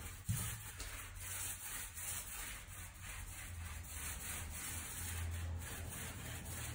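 A paintbrush stroking paint onto a school bus's rear door panel: faint, repeated short brushing strokes over a low steady hum.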